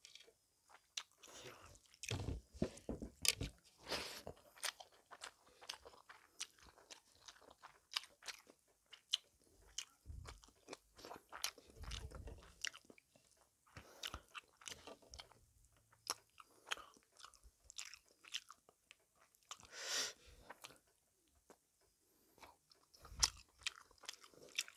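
Close-miked eating by hand: chewing fish and rice and fingers working rice on a plate, heard as many small sharp crunching clicks with a few dull thumps.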